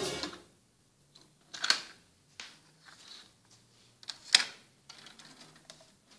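Tape music playback cuts off right at the start, followed by a handful of sharp mechanical clicks and knocks, the loudest two a couple of seconds apart, as cassette deck transport buttons are pressed and the recording phone is handled.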